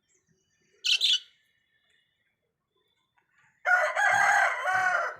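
A short shrill bird squawk about a second in, then near the end a long, loud crowing call lasting about a second and a half, like a rooster's crow.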